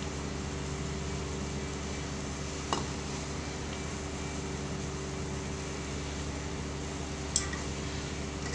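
Metal spatula stirring soup in a wok, clinking sharply against the pan twice, over a steady background hum.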